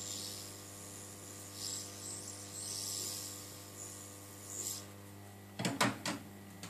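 Hot air rework station blowing over a phone board to dry it after cleaning: a steady electrical hum under a soft hiss of air that swells and fades. A few short knocks near the end.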